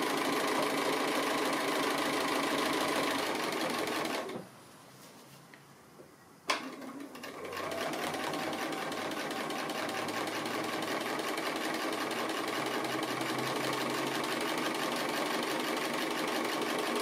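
Bernina sewing machine running steadily as it free-motion stitches through the applique, batting and stabilizer. It stops about four seconds in, a single sharp click comes some two seconds later, and then the machine starts up again and keeps stitching.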